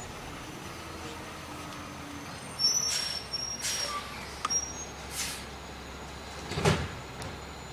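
Garbage truck idling steadily, with several short air-brake hisses carrying brief high squeals, and a louder burst near the end.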